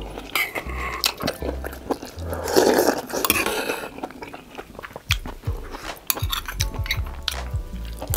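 A person eating ox-knee soup (dogani-tang) with rice: chewing, with a spoon clinking against the earthenware pot. A louder noisy burst comes about two and a half seconds in, and short clicks follow through the second half.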